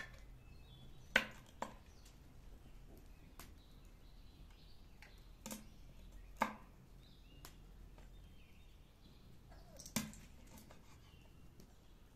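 Kitchen knife cutting raw quail on a cutting board: a handful of sharp, separate knocks of the blade on the board, a second or more apart, the loudest about a second in, around six seconds and near ten seconds.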